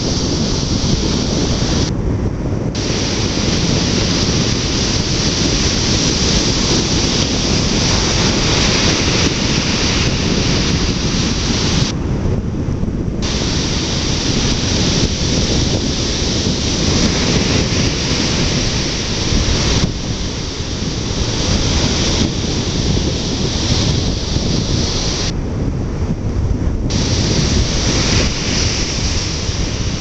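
Ocean surf breaking and washing onto the beach in a steady loud rush, mixed with wind buffeting the microphone.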